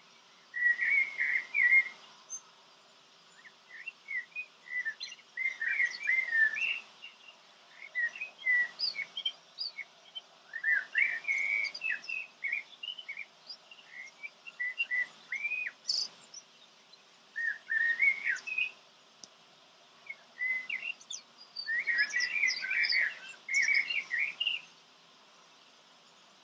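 A songbird singing outdoors: quick, varied, high twittering phrases of one to three seconds, each followed by a short pause.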